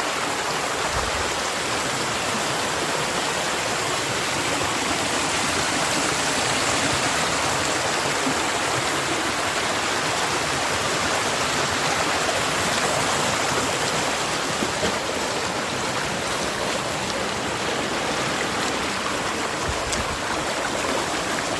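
Steady rush of a rocky hill stream, water running fast over stones.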